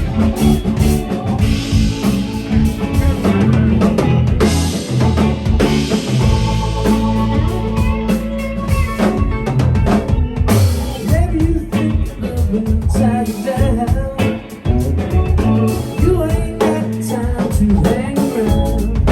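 A live rock band playing: drum kit with rimshots, a steady bass line and guitar, with a little singing.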